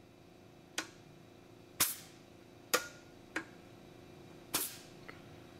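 Jenny air compressor's pilot valve being tripped by hand: five sharp clicks, two of them with a short puff of released air, over a faint steady hum. Nothing abnormal is heard with the new unloader pins fitted, in either the on or the off position.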